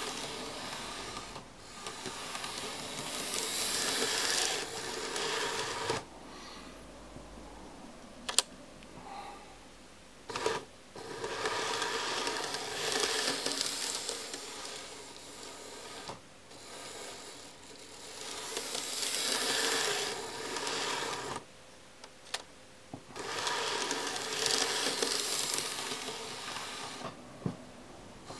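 H0e narrow-gauge model train running on track: the small electric motor of a Wengernalpbahn HE 2/2 model locomotive whirring, with the wheels rattling on the rails. It swells and fades in turn as the train goes round the layout, with a few sharp clicks, one of them about eight seconds in.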